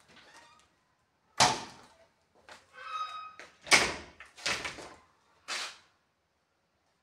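Wardrobe doors being opened and handled: four sharp knocks, the loudest about a second and a half and four seconds in, with a short squeak from the door around the three-second mark.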